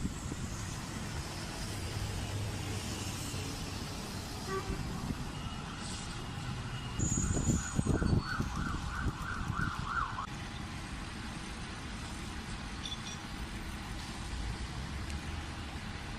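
Engine of a vehicle or heavy machine running with a steady low rumble, louder for a few seconds in the middle, where a quick run of short high-pitched pulses sounds.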